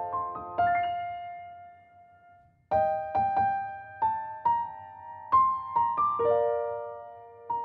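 Background music: a slow, gentle piano tune of single struck notes that ring and fade, with a short lull about two seconds in before the notes resume.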